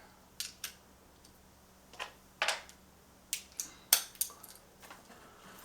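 Sockets and a socket wrench from a socket set clinking: about nine short, sharp, irregular metal clicks and taps as the right-size socket is picked out and fitted.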